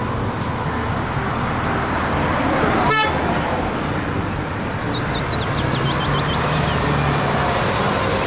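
Red double-decker city bus driving along a street in traffic, its engine running steadily with road noise around it. A brief sharp toot comes about three seconds in, followed by a string of high chirps.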